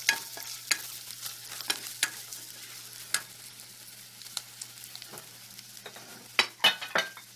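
Wooden spatula stirring and scraping onions and spice powders around a frying pan over a steady sizzle of hot oil, with irregular clicks of the spatula on the pan and a few louder knocks near the end.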